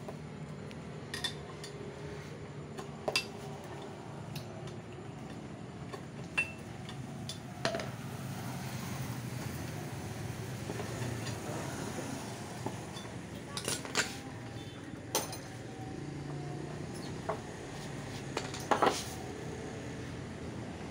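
Scattered sharp metal clinks and knocks of hand tools and parts being handled at a motor scooter's rear wheel, loudest near 3, 14, 15 and 19 seconds in, over a steady low hum.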